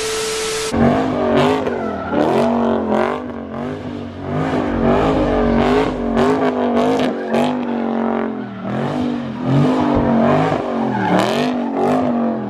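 High-revving V8 car engine held near the rev limiter, its pitch surging up and down about once a second as the throttle is worked, with tyre squeal and sharp exhaust cracks, as in a burnout or donuts.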